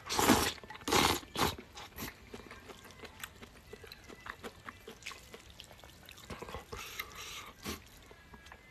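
A person slurping and eating noodles: two loud slurps in the first second and a half, then quieter chewing with small clicks, and a softer slurp about two-thirds of the way through.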